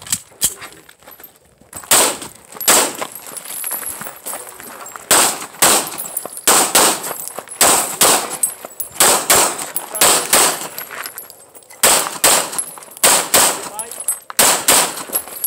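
Handgun firing rapid strings of shots, many in quick pairs, with short pauses between groups as the shooter moves to new targets.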